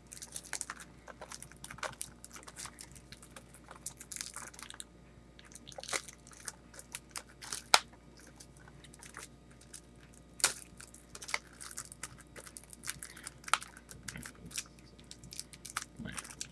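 Cellophane shrink wrap crackling and crinkling as it is picked at and peeled off a plastic Blu-ray case: irregular sharp crackles with a few louder snaps around the middle.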